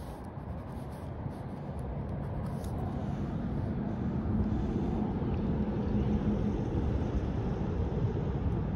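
Road traffic: the low rumble of a passing vehicle, growing gradually louder over the first few seconds and then holding steady.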